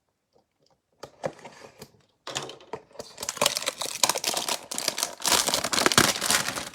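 A trading-card hanger box being torn open, its cardboard tearing and the plastic wrapper around the cards crinkling, a dense run of crackles and clicks that starts about a second in and grows busier.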